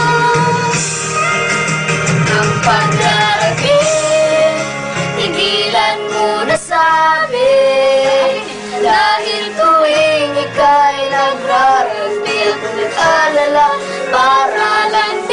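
Female voices singing a melody with acoustic guitar accompaniment.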